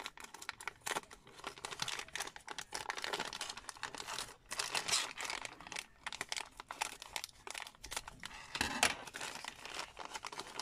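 Thin clear plastic bag crinkling and crackling as it is cut open with scissors and handled, many small crackles following one another.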